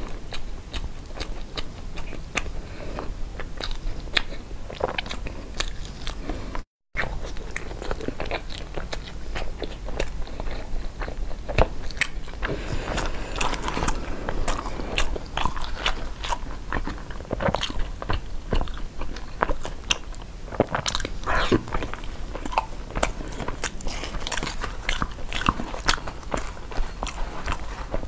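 A person chewing and eating zongzi, a sticky rice dumpling, with many small wet clicks and mouth sounds. Bamboo leaf wrappers are peeled off and rustle through the middle. The sound cuts out for a moment about seven seconds in.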